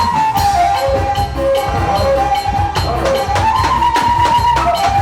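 Batak traditional ceremonial music: a wind instrument plays a stepping melody over steady drum beats and light percussion.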